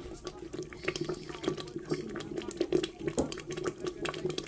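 Water or a watery liquid splashing and trickling, with many small irregular clicks over a steady low hum.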